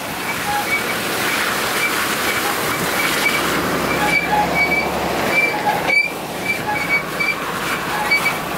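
Dodge Ram dually carrying a truck camper, driving slowly, with a steady rush of tyre and road noise. Over it a short, high squeak repeats two or three times a second from somewhere in the truck and camper; the driver does not know what causes it.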